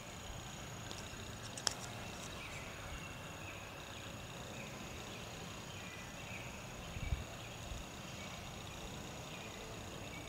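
Outdoor ambience: a steady high insect trill with scattered short chirps, a sharp click about two seconds in and a low thump about seven seconds in.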